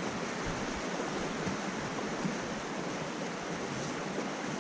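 Steady rushing of creek water flowing through a fast run.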